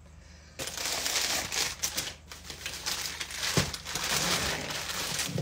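Cardboard and plastic mailers crinkling and rustling as they are handled and pulled from a pile, starting about half a second in.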